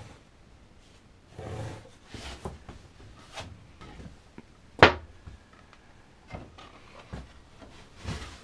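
Handling sounds from a plastic ruler and acetate template being moved around a foam surfboard blank: scattered rustles and light knocks, with one sharp, much louder knock a little past the middle.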